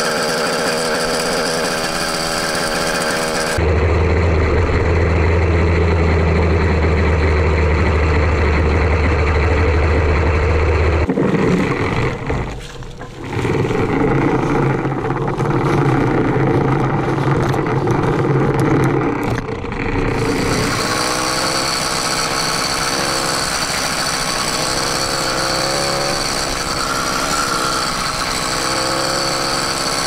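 Small motorized-bicycle kit engines running while being ridden, in several clips cut together. The sound changes abruptly about four, eleven and twenty seconds in.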